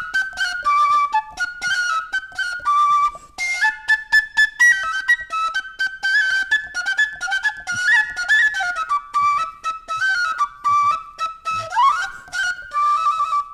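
A chair with holes drilled into its tube frame, blown as a flute: a quick, breathy melody of short notes, with a brief pause about three seconds in and a rising slide near the end.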